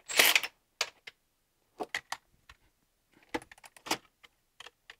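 Metallic clicks and clinks of a ratchet and socket working on the alternator mounting bolts: a short clatter at the start, then scattered, uneven clicks with a busier run about three and a half seconds in.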